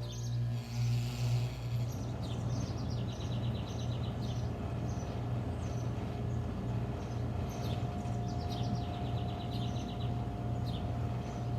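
York Affinity 3S central air conditioner's outdoor condensing unit running just after start-up: a steady low compressor hum under the rush of the condenser fan. Birds chirp and trill over it.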